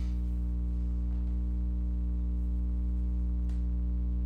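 Steady low electrical hum with a ladder of overtones, unchanging throughout, and a faint click about three and a half seconds in.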